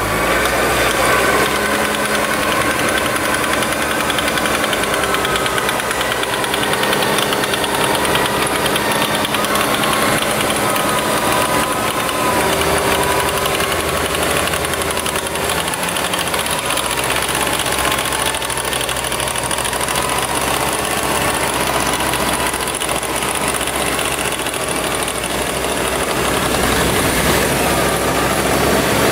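Off-road vehicle engine running steadily under an electric winch's motor whine that wavers up and down in pitch as the winch hauls a stuck Jeep Grand Cherokee out of the mud.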